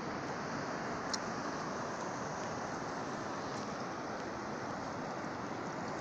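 Steady rushing of sea surf and wind along a rocky shore, with one faint click about a second in.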